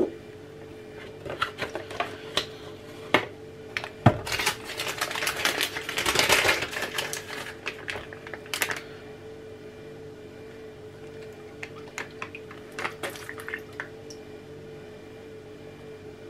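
Milk pouring from a carton onto a bowl of porridge oats, a splashing rush lasting about four seconds from roughly four seconds in, with some of it spilling over onto the wooden board. Clicks and knocks of the carton and bowl being handled come before and after the pour.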